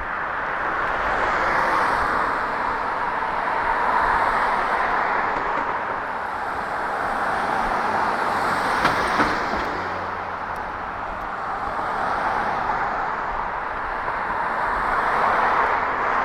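Road traffic: cars passing one after another, their tyre and engine noise swelling and fading every few seconds, with a short sharp click about halfway through.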